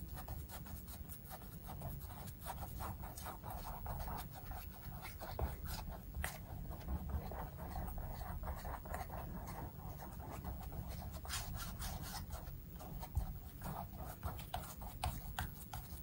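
A paintbrush brushing black acrylic paint back and forth across a canvas: a run of short scratching strokes.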